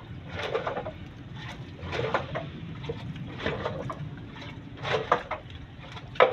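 Wet fish being handled and shifted by hand in a basket, in short bursts of noise about every second and a half.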